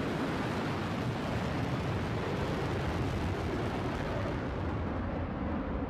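Rocket engine roar as the New Shepard booster's single BE-3 hydrogen-oxygen engine lifts off: a dense, steady rumble with the most energy in the low end. The hiss at the top of the noise thins out near the end.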